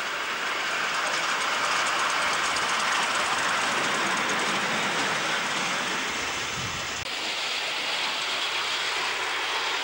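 Ride-on miniature live steam locomotive and its passenger cars running past close by: a steady, noisy rush with a light clatter of wheels on the rails, cutting off suddenly at the end.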